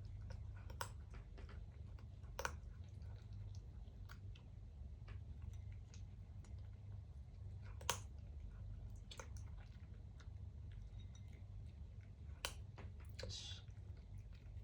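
Somali cat eating from its bowl: faint chewing with a few scattered sharp clicks, over a steady low hum.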